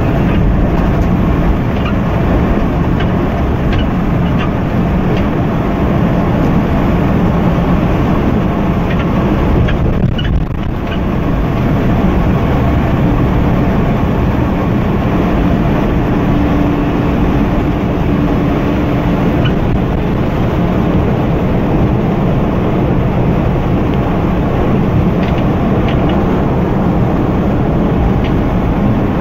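Coach engine drone and road noise heard from inside the moving bus's cabin, steady and deep throughout, with a faint steady whine for a few seconds past the middle.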